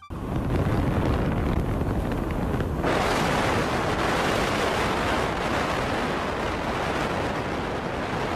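Wind rushing and buffeting over the microphone at the open window of a moving car, with a low rumble of air and road underneath; it grows louder and brighter about three seconds in.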